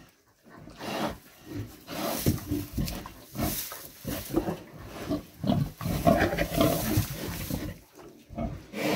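Sow grunting in short irregular bursts while rooting and rustling through straw bedding with her snout: nest-building, the sign that farrowing is near.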